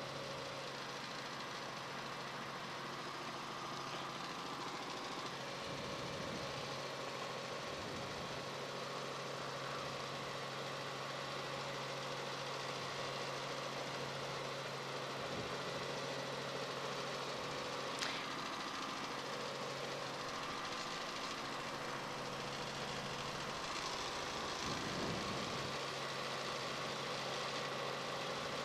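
Steady engine drone from inside a news helicopter, with constant humming tones over a noisy hiss, and one sharp click about 18 seconds in.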